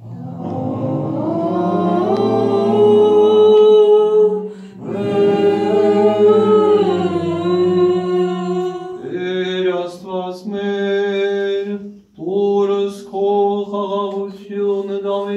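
Unaccompanied Armenian liturgical chant: voices singing a slow melody in long held notes over a steady low drone, with two brief breaks for breath.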